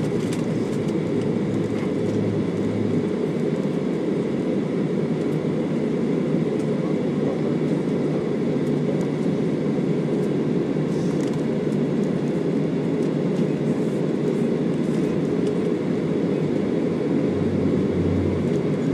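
Boeing 737 airliner taxiing on the ground, heard from inside the cabin: a steady low drone of the jet engines at idle and the cabin's air noise.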